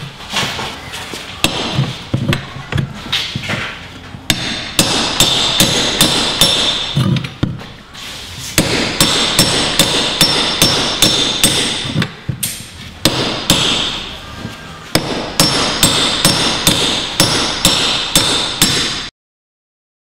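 Hammer blows on a steel pry bar wedged under a high-security door handle, striking metal on metal with a ringing note. The blows come about three a second in three long runs with brief pauses between them.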